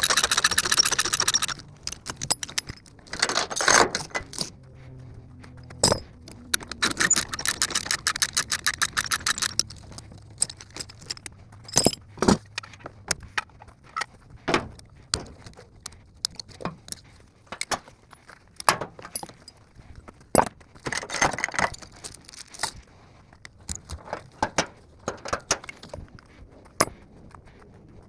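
Steel chain rattling and clinking as it is handled and hooked up, in several long bursts of jangling with scattered single clinks in between.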